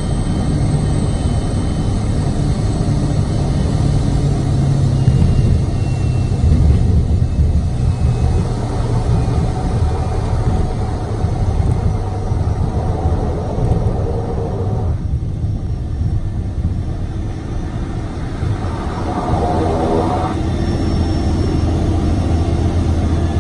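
Kodiak 100's PT6A turboprop and propeller at low power while the amphibian taxis on the water, heard from inside the cockpit: a steady low drone.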